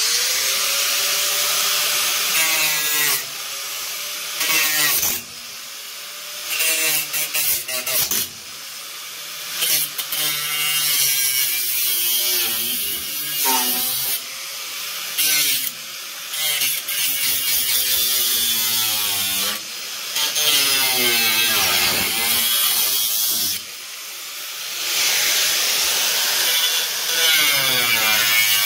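A 4.5-inch angle grinder with a thin aluminum oxide cut-off wheel starts up and cuts through the rusty sheet-steel floor pan of a VW Beetle. It is really loud. The motor's pitch sags and recovers and the noise surges every few seconds as the wheel bites into the metal and eases off.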